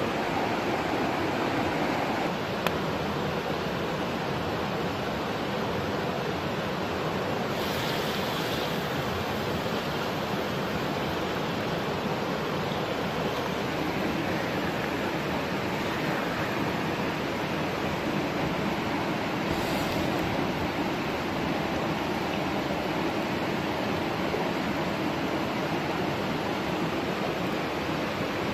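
Steady rushing noise with no distinct events, and brief hissier swells about eight and twenty seconds in.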